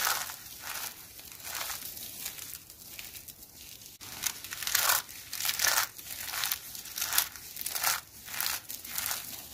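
Dry, starch-coated soap shavings and curls crunching and crackling as they are squeezed and crushed between bare hands. A run of separate crunches, about one or two a second, loudest around the middle.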